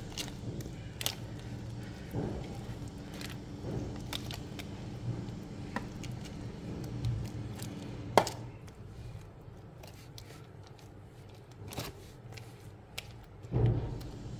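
A spoon spreading and levelling a thick chocolate-coated biscuit mixture in a parchment-lined metal baking tin: soft scraping and squelching, with a few sharp clicks of the spoon and a couple of duller knocks near the end. A steady low hum runs underneath.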